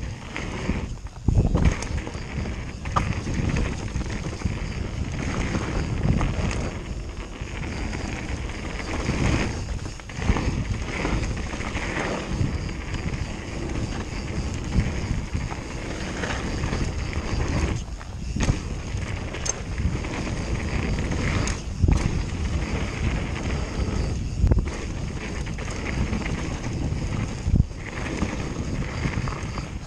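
Mountain bike descending a gravel trail at speed: wind buffeting the camera microphone over tyres crunching on loose stones, with sharp knocks now and then as the bike hits bumps.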